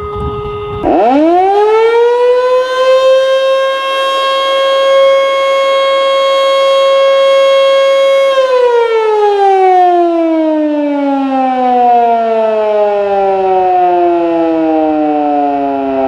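Federal Signal Canadian Model 2 fire siren on test. About a second in it winds up in a rising glide, holds a steady pitch for about five seconds, then winds down in a long, slow falling glide. It reaches full pitch and sounds healthy, not sick with low pitch.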